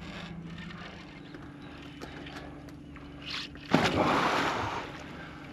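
A hooked arapaima thrashing at the water's surface makes a loud splash a little under four seconds in, lasting about a second. Under it runs a steady low hum.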